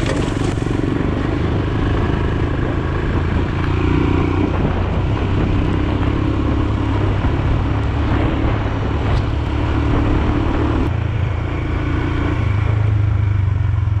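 Royal Enfield Himalayan's single-cylinder engine running under way, its note rising and falling with the throttle several times.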